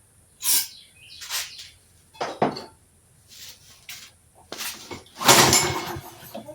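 A series of short hissing squirts of aerosol starting fluid sprayed into a Troy-Bilt push mower's carburetor intake, mixed with small clicks and clunks of handling. About five seconds in comes a longer, louder noisy burst.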